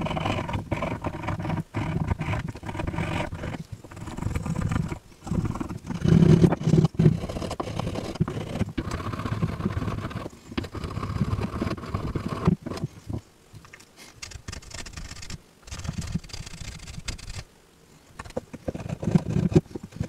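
Knife whittling a small wooden clothespin: repeated rough scraping strokes of the blade shaving the wood, with short pauses between them.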